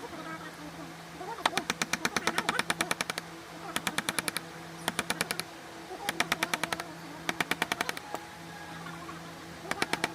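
Carving chisel struck with a mallet in runs of rapid, even taps, about nine a second, cutting into hardwood; four bursts of one to two seconds with short pauses between. A steady low hum runs underneath.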